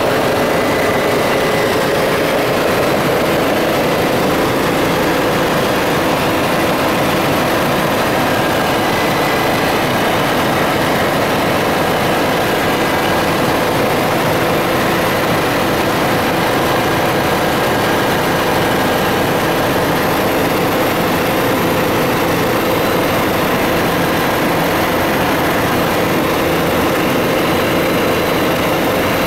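Helicopter in flight heard from inside the cabin: a loud, steady drone of engine and rotor with a faint steady whine on top.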